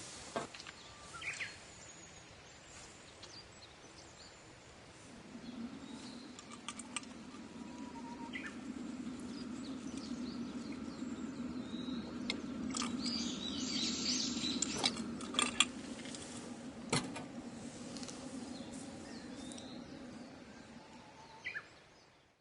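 Scattered bird chirps over outdoor ambience, with a low drone that swells in about five seconds in and fades out near the end.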